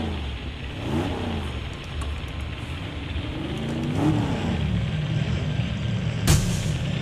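Motorcycle engine running with a steady low rumble and revving up and down twice. A single sharp crack comes about six seconds in.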